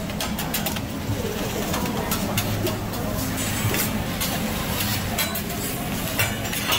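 Metal spatula clacking and scraping on a steel teppanyaki griddle as a hibachi chef chops and spreads rice for fried rice, many quick irregular clinks over a steady low hum, with diners chattering.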